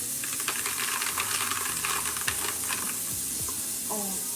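A quick run of small clicks and crackles lasting about three seconds over a steady hiss, followed near the end by a short spoken 'oh'.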